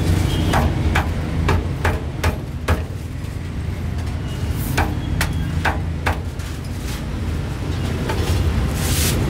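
Heavy cleaver chopping roast meat on a thick wooden chopping block: a quick run of sharp knocks, about two or three a second, then a pause and a second, shorter run. A steady low rumble underneath.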